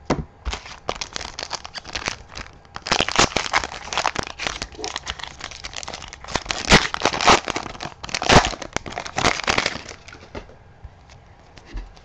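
A Panini Pinnacle hockey card pack wrapper being torn open and crinkled by hand: a run of irregular crackling rustles, loudest in the middle, that dies down near the end as the cards come out.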